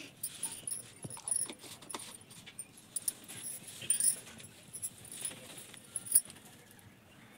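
Glass and metal bangles on a wrist jingling and clinking in irregular bursts as the hand tends a wood fire in a clay stove, with scattered sharp clicks and knocks. The loudest knocks come about four and six seconds in.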